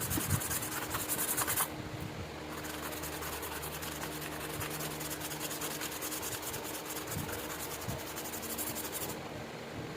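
Steady, rapid hand scrubbing of abrasive against a rusty steel knife blade to take off the rust, a continuous scratchy rasp.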